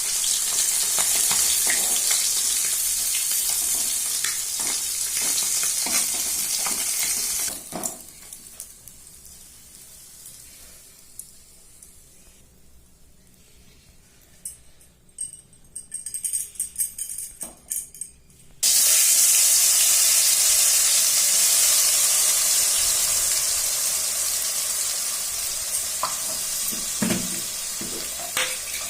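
Food frying in hot oil in a pan, with a steady loud sizzle. About eight seconds in the sizzle drops away for around ten seconds, leaving a quieter stretch with scattered clicks and clatter, then it comes back abruptly.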